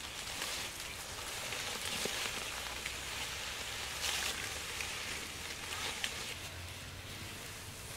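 Dry grass and leaves rustling and crackling, a steady hiss broken by brief louder crackles about half a second, two, four and six seconds in.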